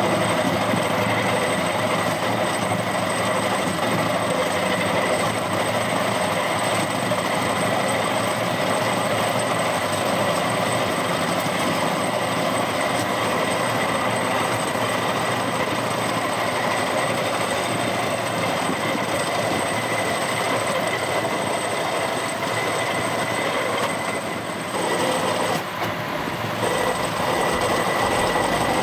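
Rail-mounted golf cart running along railway track: a steady rolling noise of its wheels on the rails with a constant high-pitched ringing whine, easing briefly about 24 seconds in.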